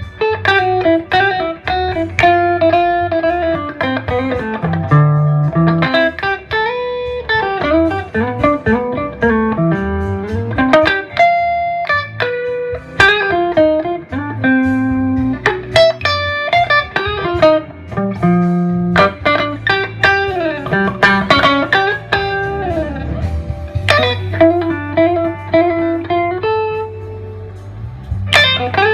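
Gibson ES-339 semi-hollow electric guitar played through a Gibson GA-30RVS tube amp: a melodic lead line of single notes, some sliding in pitch.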